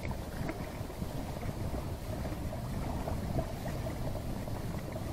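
Wind buffeting the microphone: a steady low rumbling hiss, with a few faint small ticks.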